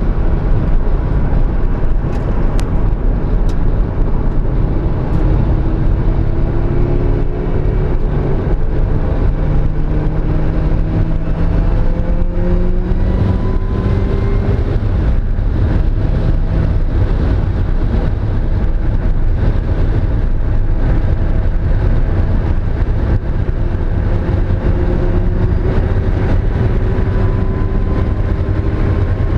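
Mazda Miata inline-four engine running hard under load, its pitch climbing slowly as the revs rise twice. The car has a misfire on cylinder 2.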